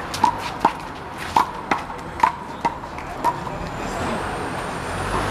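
Rubber handball being slapped by hands and rebounding off the wall in a one-wall handball rally: about seven sharp smacks with a short ringing pop, at an uneven pace. Near the end the smacks stop and road traffic swells, with a rising whine.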